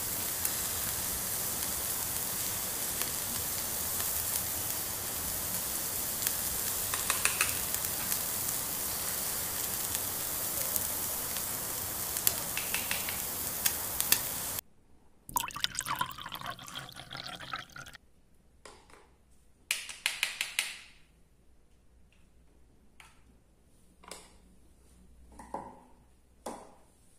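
Steady sizzling hiss, as of food frying in a pan, that cuts off suddenly about halfway through. After it come light clicks and knocks of plastic toy cookware being picked up and set down.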